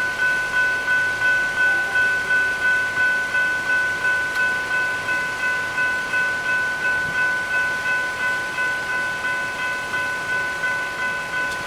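Level crossing warning bell, a General Signals Type 3 electronic bell, ringing steadily at about two and a half strikes a second with a bright metallic tone. It signals that the crossing is active for an approaching train.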